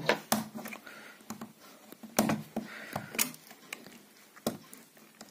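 A metal blade scraping and cutting away plastic around a drilled hole in a laptop's plastic case: irregular scratches and clicks, a few sharper than the rest.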